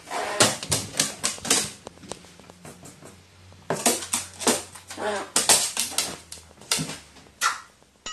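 Runs of quick, sharp clicks and taps from a pet crow working its bill on a toy paper banknote and a wooden board, with a short sneeze from the crow near the end.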